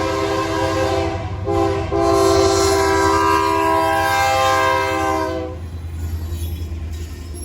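Canadian National freight locomotive's multi-chime air horn sounding a long blast, a short one, then a final long blast that cuts off about five and a half seconds in, over the steady low rumble of the passing train.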